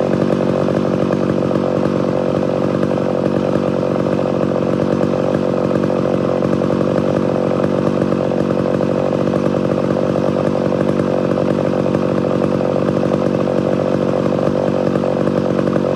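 Two-stroke chainsaw running steadily at high speed.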